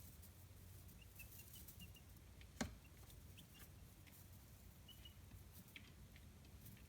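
Chicks peeping faintly in short, high notes, among light ticking clicks. One sharp knock about two and a half seconds in stands out above the rest.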